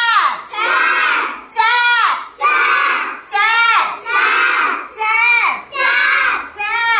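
A group of young children led by a teacher, chanting in unison in a steady drill: short, loud, evenly spaced calls at a little more than one a second, each rising and falling in pitch.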